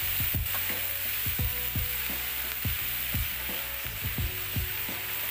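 Shell-on shrimp sizzling in a hot nonstick frying pan while a spatula stirs them. The spatula knocks and scrapes against the pan irregularly, about once or twice a second, over a steady sizzle.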